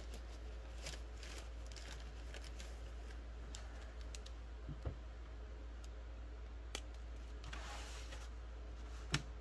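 Light handling of a paper sheet and marker pens on a table: a few sharp taps and clicks, about five, seven and nine seconds in, the last the loudest, and a brief paper rustle just before it, over a steady low hum.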